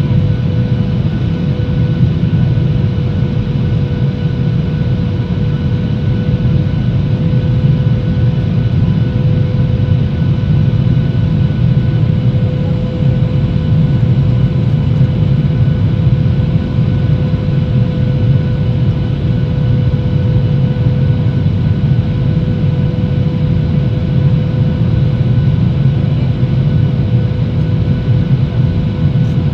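Steady cabin noise inside a Boeing 737 in flight: a constant rush of airflow and engine drone, with a steady hum at a few fixed pitches over it.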